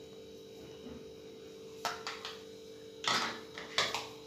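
A few short, soft knocks and scrapes from a plastic bowl and a steel plate being handled, about two seconds in and again around three and four seconds in, over a steady faint hum.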